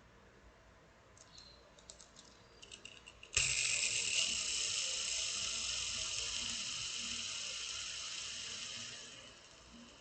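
Fidget spinner (a three-pop simple-dimple ring spinner) handled with a few light clicks, then flicked about three seconds in. Its bearing gives a steady high whir that fades slowly and falls much quieter near the end as the spin winds down.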